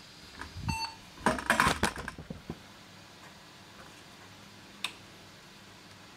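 A single short electronic beep from the PC's internal speaker as the old Abit computer POSTs. The beep is followed by about a second of loud, irregular clattering knocks and, near the end, one sharp click.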